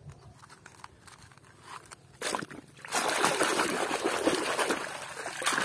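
Water splashing and sloshing as a muddy plastic toy is scrubbed with a sponge in water to wash the mud off. It is fairly quiet at first, with a short splash a little past two seconds, and the steady splashing starts about three seconds in.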